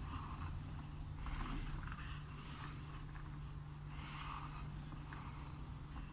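Wooden automaton handcar rolled by hand across a chipboard table: wooden wheels rolling and the wooden pump-lever mechanism rubbing, with a soft scraping swish about every second and a half as the lever rocks. A steady low hum runs underneath.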